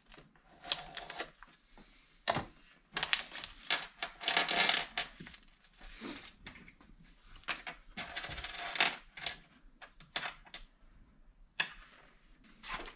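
Irregular clicks, clinks and scrapes of small bolts, washers and a metal exhaust heat guard being handled on a workbench, with a few longer rattling scrapes.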